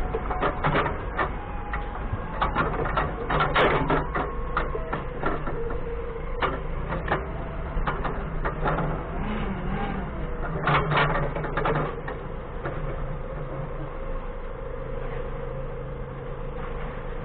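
Doosan 4.5-ton forklift engine running steadily, with frequent metallic clanks and rattles, loudest around four and eleven seconds in. A steady whine comes in about five seconds in.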